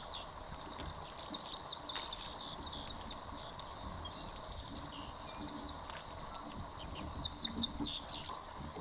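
Songbirds chirping: rapid runs of short, sliding notes in several bursts, busiest near the end, over a faint steady hum and a low rumble.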